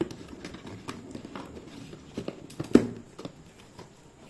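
Cardboard box being handled and opened: scattered taps, scrapes and rustles of cardboard, with one sharp knock about two-thirds of the way through.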